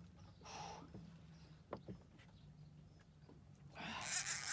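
Fishing reel's drag giving line in a loud, grainy burst near the end as a hooked wels catfish pulls against the bent rod. Earlier there is a short soft hiss and a single click.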